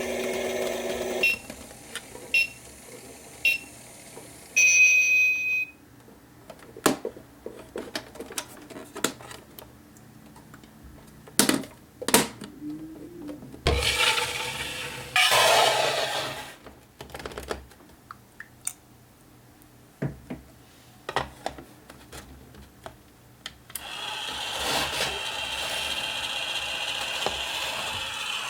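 Toy kitchen appliances being operated and handled: a small motor whirs and stops about a second in, followed by three short electronic beeps and one longer beep. Then come scattered plastic clicks and knocks, two louder rushing bursts, and a small motor whirring steadily near the end.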